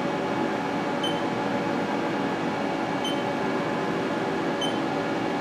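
Steady hum of a powered-up Haas TM-2 CNC vertical mill, with three short high beeps spaced a second and a half to two seconds apart.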